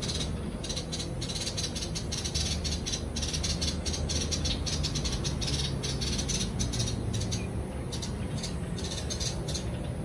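Light-vented bulbuls calling, a fast, chattering stream of short high notes over a steady low rumble.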